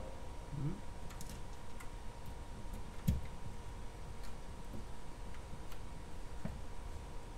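Faint, scattered small clicks and ticks of small metal screws being threaded by hand into a resin printer's vat frame, with one louder low knock about three seconds in.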